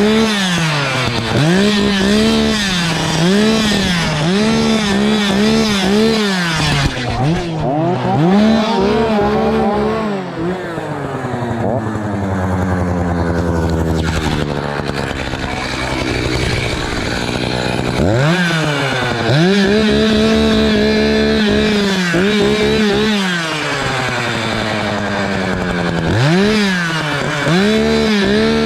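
Echo two-stroke chainsaw revved over and over in quick blips, the engine dropping back between each, then left at lower revs for several seconds in the middle before being revved and held high again.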